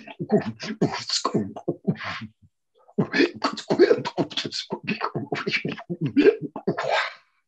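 A man's voice speaking "light language": rapid, wordless strings of syllables full of hissing and clicking consonants. It pauses briefly a little over two seconds in and stops just before the end.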